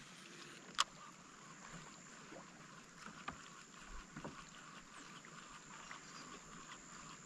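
Faint water lapping against a kayak hull in a light breeze, with a few small sharp clicks or knocks, the sharpest about a second in.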